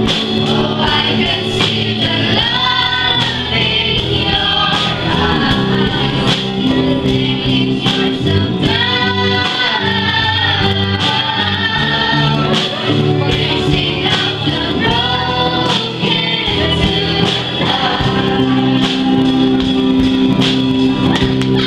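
A group of young voices singing a song together into microphones, over amplified instrumental backing with a steady bass line and drum beat.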